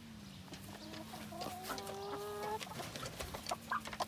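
Hens clucking softly, with a longer drawn-out cluck about a second and a half in and short high peeps and clicks scattered around it.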